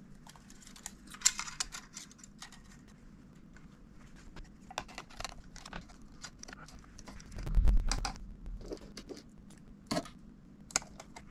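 Small clicks, taps and rattles of laptop parts and tools being handled as the trackpad is fitted back into a 2017 13-inch MacBook Pro, with a short dull thump about two-thirds of the way in and a couple of sharp clicks near the end.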